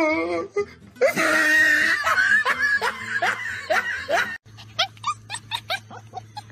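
A dog howling with a wavering pitch, breaking off about half a second in, then laughter mixed with more dog vocal sounds for about three seconds. After a sudden cut, a fluffy puppy gives a quick series of short, high yips over a low hum.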